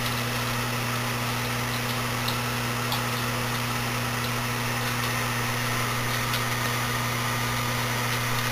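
Citizen microwave oven running, a steady low hum, with a few faint ticks.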